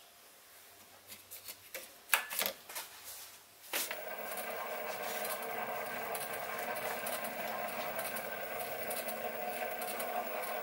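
A few clicks and knocks, the loudest about two seconds in, then the Sieg SC3 mini lathe's motor starts abruptly and runs steadily, spinning a four-jaw chuck with a steady hum of several tones.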